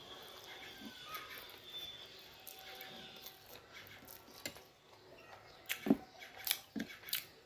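A person eating instant noodles with two forks: quiet slurping and chewing at first, then a run of sharp clicks and taps over the last three seconds or so, the loudest about six seconds in.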